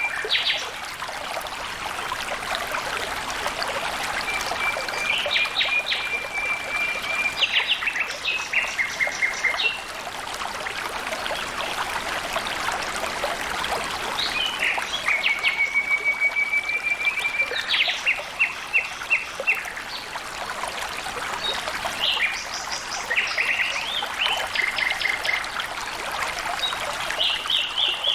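Water trickling and flowing steadily, with a songbird singing over it several times, each phrase a long even trill followed by a quick run of short notes.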